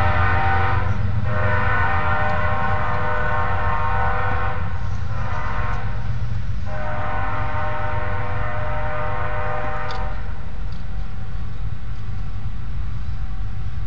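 BNSF intermodal train's air horn sounding in blasts, long, long, short, long, the pattern of a grade-crossing signal, the last blast cutting off about ten seconds in. The train's low rumble runs underneath throughout.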